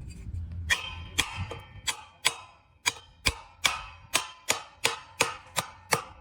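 Steady, even hammer blows, about two to three a second, each with a short ringing tail, starting about a second in.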